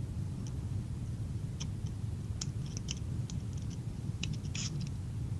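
Scattered light clicks and ticks of small ball bearings and plastic axle parts being handled and fitted together, about seven or eight at irregular moments, over a steady low hum.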